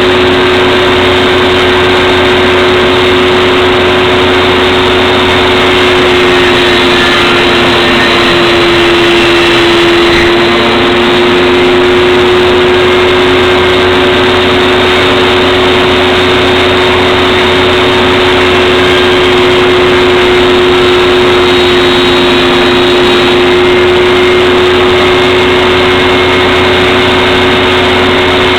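Table saw running steadily, its pitch dipping briefly about a third of the way through as the blade is loaded by a back cut in wood moulding, then recovering.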